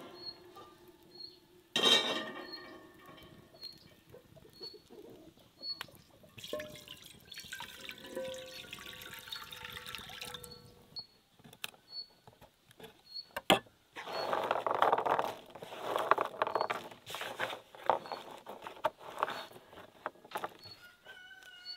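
A metal grill grate set down on its iron stand with a clank about two seconds in, then water poured from a clay jug into a cast-iron pan, the pitch rising a little as it fills. After a sharp click, a run of rough rattling noises follows.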